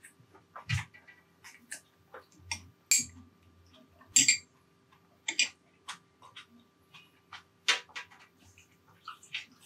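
Close-up eating sounds from a mukbang: irregular wet mouth clicks and smacks of chewing, a few of them sharper and louder, over a faint steady hum.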